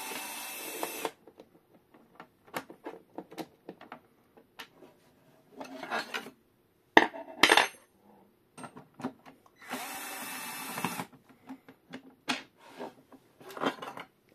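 Worx cordless electric screwdriver running in two steady bursts of about a second each, near the start and about ten seconds in, as it backs out long steel bolts. Between the bursts come scattered clicks and rattles of handling, and about seven seconds in two sharp metallic clinks that ring on, a loose steel bolt knocking against metal.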